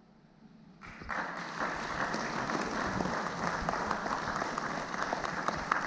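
Audience applause breaks out about a second in, after a short hush at the end of the piece, and continues steadily.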